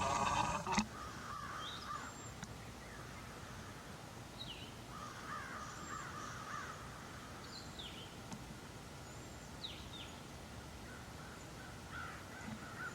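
Wild birds calling: a few harsh, scratchy calls and short high chirps that sweep downward, over a faint steady outdoor background, after a brief louder noise at the very start.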